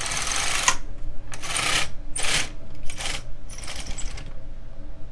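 Silver Reed LK150 knitting machine carriage pushed along the needle bed, knitting a row. It rattles and rasps over the needles in several short pushes and stops about four seconds in.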